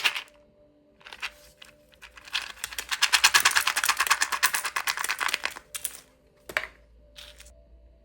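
Crinkly plastic candy wrapper being handled and unwrapped, rapid crackling in several bursts, the longest and loudest in the middle, over soft background music.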